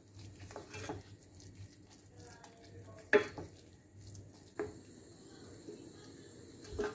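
Wooden spoon stirring grated cheese into moist semolina helva in a stainless steel pot on the heat: faint soft scraping with a few sharp knocks of the spoon against the pot, the loudest about three seconds in.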